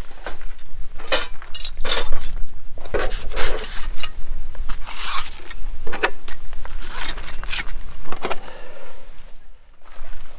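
Metal cutlery and camp kitchen gear clinking and clattering as it is sorted and packed away, in a string of sharp knocks and rattles that dies away near the end.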